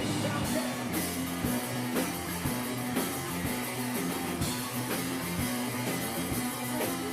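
Live rock band playing: electric guitar and bass holding sustained notes over a drum kit keeping a steady beat of about two hits a second.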